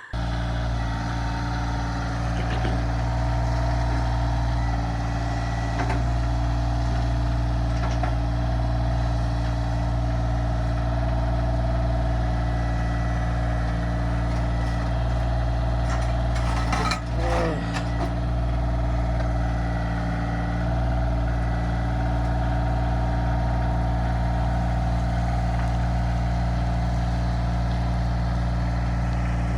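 Kioti CK2610 compact tractor's diesel engine running steadily.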